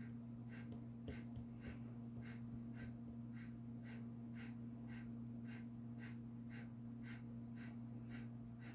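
A stiff bristle brush scrubbing gouache onto watercolour paper in short, even strokes, about two a second, over a steady low electrical hum. The strokes are faint and scratchy.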